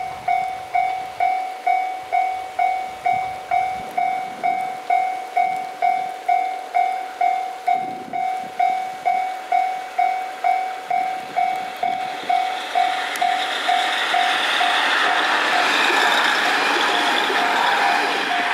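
Japanese level-crossing warning bell ringing steadily, about two and a half strikes a second. From about twelve seconds in, the running noise of a KiHa 47 diesel railcar passing over the crossing rises and becomes louder than the bell.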